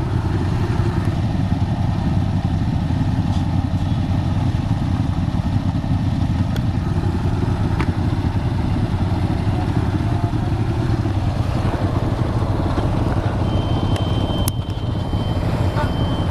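Yamaha RX King two-stroke single-cylinder motorcycle engine running steadily, with a thin high tone near the end.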